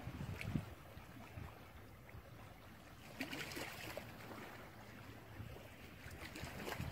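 Faint steady rushing noise with a low rumble, and a louder hiss about three seconds in.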